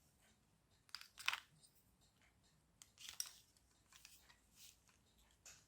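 Faint, scattered clicks and light scratchy handling sounds of small parts and wires being fiddled with by hand, the sharpest click about a second in.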